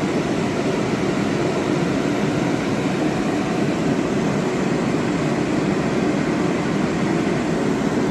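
Propane forced-air heaters running: a steady, even roar of fan and burner.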